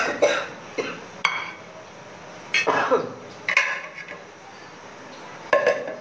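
A metal spoon clinking and knocking against the blender jar and dishes while ingredients are spooned in. It comes as a handful of separate sharp clinks, some ringing briefly, spread through with short gaps between.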